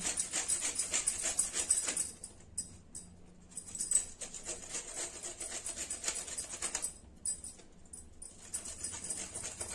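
Fresh ginger grated on a stainless steel grater: rapid rasping strokes in two runs, with a pause of about two seconds between them and softer strokes near the end.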